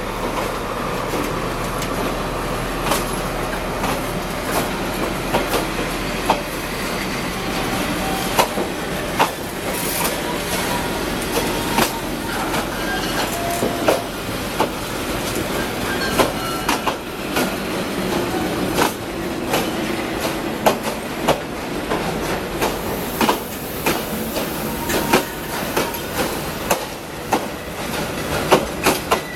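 Train carriages rolling past on the rails, wheels clacking over rail joints in irregular knocks, with brief metallic wheel squeals.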